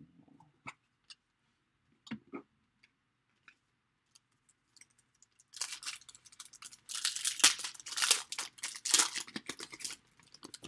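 Clear plastic wrapper on a pack of trading cards being torn open and crinkled: a few light clicks of cards being handled, then from about halfway in a dense crackling rustle of plastic that runs for several seconds.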